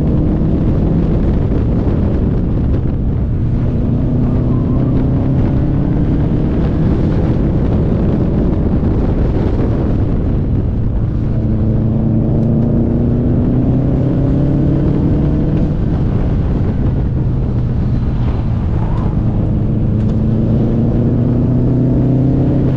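Subaru STI's turbocharged flat-four engine pulling hard on a twisty road, its revs climbing for a few seconds and then dropping back, three times over, as the car accelerates between bends and slows for the next.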